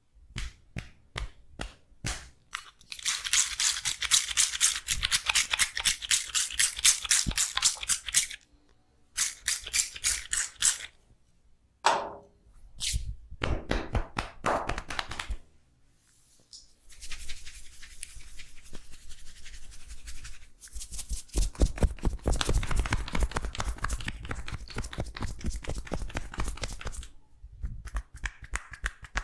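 Rapid, rhythmic hand strikes and crackling on a person's head and hair during an Indian head massage with hair cracking, several sharp strokes a second. The strokes come in bursts a few seconds long with short pauses between them.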